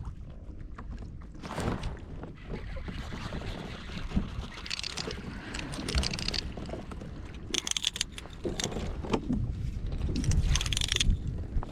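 Wind buffeting the microphone on a fishing kayak, with water slapping and splashing against the hull in irregular bursts that grow busier in the second half.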